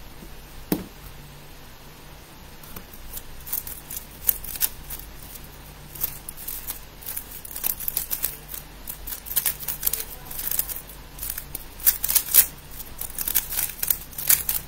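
Plastic 3x3 speed cube being turned fast in a timed solve: quick clicking and clacking of the layers as they turn, sparse at first and much busier from about four seconds in, after a single knock under a second in.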